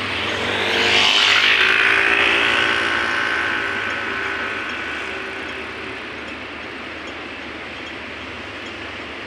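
A road vehicle passing close by, its engine and tyre noise swelling about a second in, dropping slightly in pitch as it goes past, then fading over the next few seconds to a steady hum of distant traffic.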